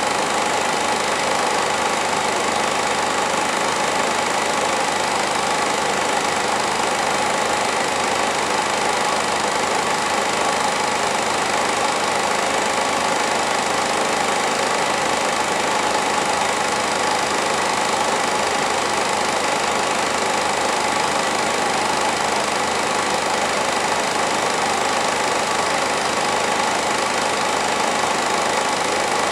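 Home-movie film projector running: a steady, unchanging mechanical whir of its motor and film transport.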